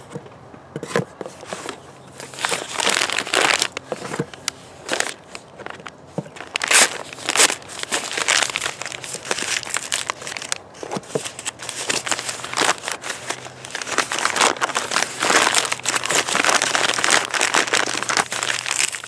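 Packaging being handled: a paper mailer cut open with scissors and a plastic bag crinkled, giving irregular rustling and crackling with sharp clicks.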